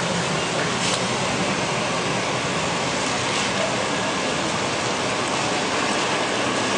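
A diesel motor coach running as it pulls slowly in close by, a steady, even rush of engine and air noise.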